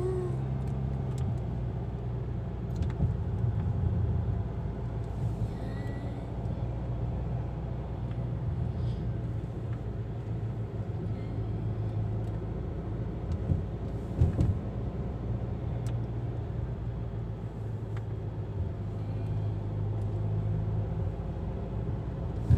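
Car cabin noise while driving: a steady low engine hum over tyre and road noise, with a couple of brief knocks a little past the middle.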